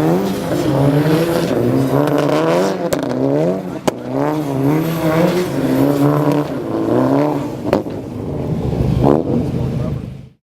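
Car engine revving up and down again and again while drifting, its pitch rising and falling about once a second, with a few sharp clicks along the way. The sound cuts off abruptly near the end.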